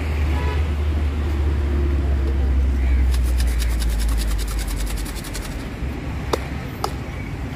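Low engine rumble of a nearby motor vehicle, fading after about five seconds. A rapid run of faint ticks comes in the middle, and two sharp clicks come near the end.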